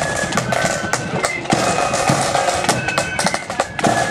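Marching flute band playing: flutes hold a tune over the sharp strokes of side drums and bass drum.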